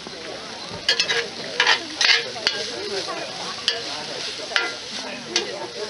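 A metal serving spoon stirring sliced vegetables in a square cast-iron Dutch oven over charcoal, scraping and clinking against the iron several times while the vegetables sizzle.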